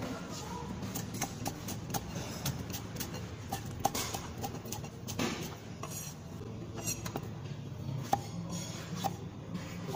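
Cleaver chopping vegetables on a thick wooden chopping block: a run of sharp knocks at an uneven pace, several a second.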